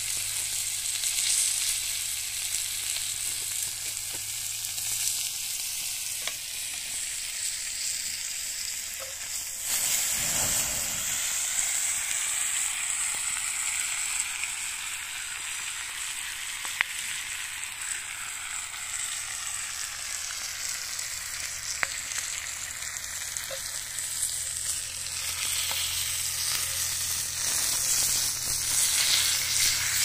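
Beef steak and garlic cloves sizzling on a ridged grill pan over a wood fire: a steady frying hiss with a few sharp pops.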